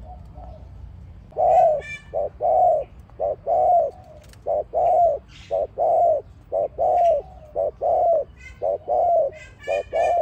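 Spotted dove cooing: a steady run of low coos begins about a second and a half in, short and long notes alternating about once a second. Small birds chirp above it now and then.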